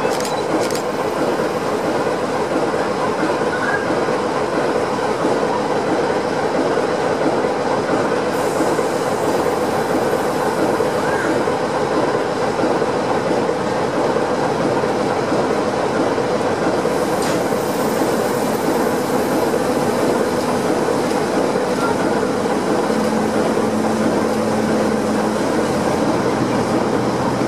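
Class 09 diesel shunter running as it rolls slowly alongside the platform, a loud, steady mechanical sound with no letup.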